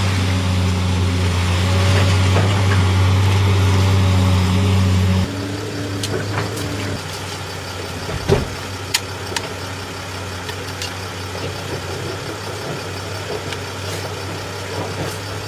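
Heavy machine's engine running steadily with a loud low hum. About five seconds in it drops abruptly to a quieter running sound, with a few sharp knocks and one louder thump a little after eight seconds.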